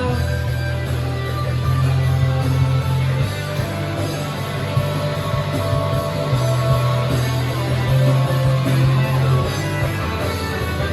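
Rock band playing an instrumental passage between sung verses, with guitars over a steady bass line and no singing.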